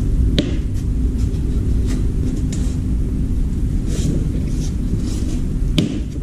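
Steady low rumble throughout, with a few sharp plastic clicks and knocks as the washing machine's plastic door frame is handled and pressed against styrofoam: one about half a second in and one near the end.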